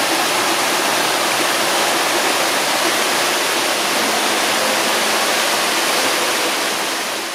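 Waterfall pouring, a dense steady rush of falling water that fades out near the end.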